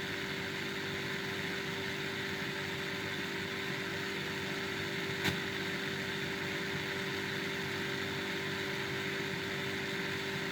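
Steady hiss and hum with a low steady tone coming from an FM radio's speaker, as a CB radio transmission with no voice on it bleeds over onto the FM station; a single click about five seconds in.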